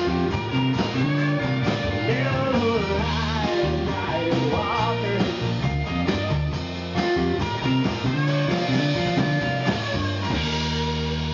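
A live rock band playing: a strummed acoustic guitar and electric guitars through Orange amplifiers, with singing over them. About ten seconds in the band settles onto a held chord that rings on.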